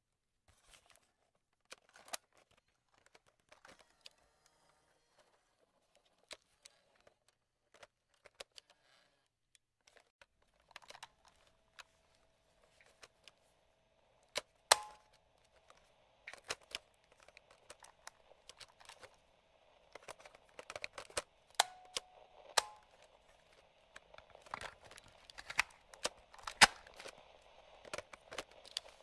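Sharp clicks of the slide switches and push keys on a vintage radio-cassette player, scattered singly at first and coming thicker and louder later on. About a third of the way in, light radio static with a faint steady hum comes in under the clicks.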